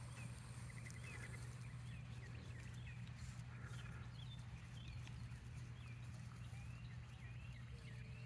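Faint, short, high chirps from small birds, scattered all through, with a couple of brief trills, over a steady low hum.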